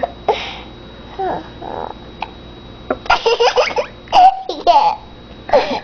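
A young girl giggling in several quick, high-pitched bursts, most of them in the second half, after a few short vocal sounds.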